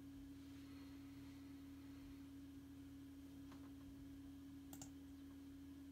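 Near silence: room tone with a faint, steady single-pitched hum, and two faint clicks past the middle.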